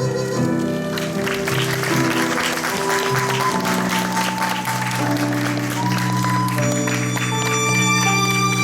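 Audience applause over curtain-call music from a stage musical: a slow piece with long held notes. The clapping comes in about a second in and thins out near the end while the music carries on.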